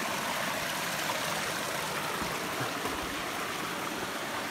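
Small forest stream running over rocks: a steady rush and splash of water.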